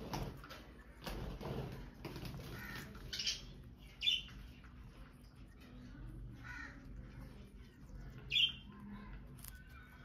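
Indian ringneck parakeets giving short, harsh squawking calls, about four of them, the loudest about four and eight and a half seconds in. Soft rustling in the first two seconds.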